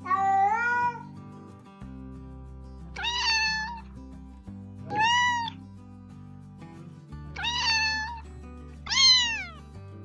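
A cat meowing five times, roughly one call every two seconds. The first call rises in pitch and the last falls, all over background music.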